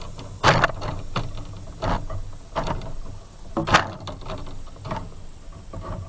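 Fishing rods and tackle clattering about in a boat: a run of irregular knocks and rattles, about eight strong ones among lighter ones.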